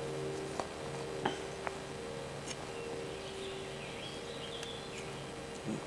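Quiet outdoor ambience with a faint steady low hum and a few small clicks. A small bird chirps faintly midway, and a soft knock comes near the end.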